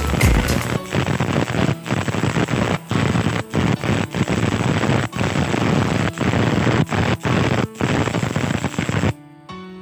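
Stick-welding (arc welding with a welding rod) arc crackling steadily, broken by a few very short gaps, cutting off about nine seconds in; soft background music follows.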